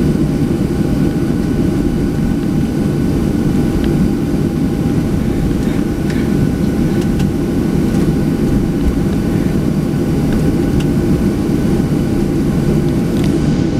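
Boeing 737-700's CFM56-7B jet engines running, heard from inside the cabin beside the wing: a loud, steady rumble with faint steady whine tones over it.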